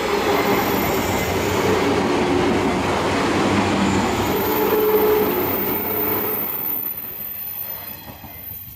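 JR 185 series electric train passing close by, its wheels rumbling and clattering on the rails. The sound fades from about seven seconds in as the last car draws away.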